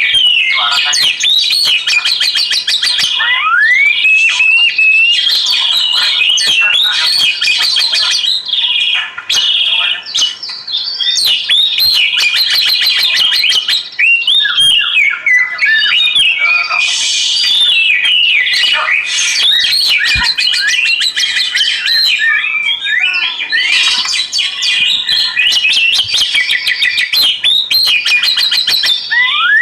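Oriental magpie-robin (kacer) singing at length: a loud, varied song of rising and falling whistles, fast chattering trills and sharp chirps, phrase after phrase with only short breaks.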